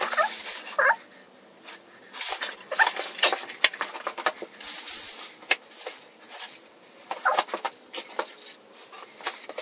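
Cut-down plastic catch buckets and an oil container being shuffled and scraped across a concrete floor to swap them under the draining transmission: irregular scuffs, knocks and rustles.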